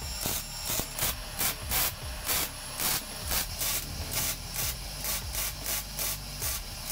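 MIG welder laying short stitch welds on exhaust tubing: bursts of crackling, frying hiss, about two to three a second, each cut off as the trigger is released.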